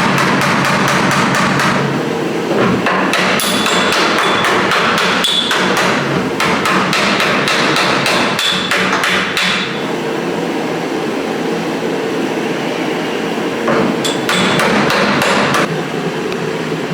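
Rapid, repeated knocking of a tool against car-body sheet metal in three bursts, with a quieter stretch between the second and third, over a steady hum: old seam sealer and rust being chipped and scraped off the body.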